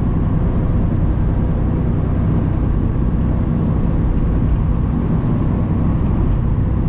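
Semi-truck running steadily at about 45 mph on a wet highway: a constant low engine and road drone.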